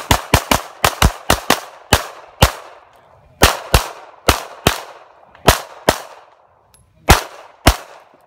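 Handgun firing a string of about eighteen shots. The first ten come fast in the first two and a half seconds, then the rest come in pairs a few tenths of a second apart, the last pair near the end.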